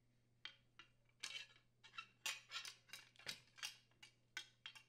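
Faint metallic clinks and taps, about a dozen scattered irregularly, as a sheet-metal gas valve bracket is handled and slid into alignment on a gas inlet pipe.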